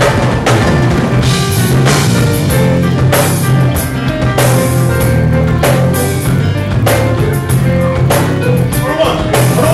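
Live band playing loudly: drum kit beating a steady groove over a heavy bass line, with keys or guitar.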